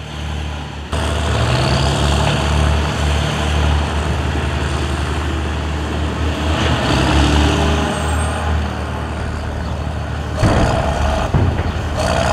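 Heavy construction-vehicle diesel engine running, a wheel-loader sound effect, with a steady low rumble. A sudden louder rush of noise comes about ten seconds in.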